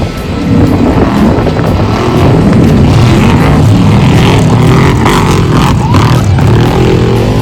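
Off-road race truck's engine running hard, its revs rising and falling again and again.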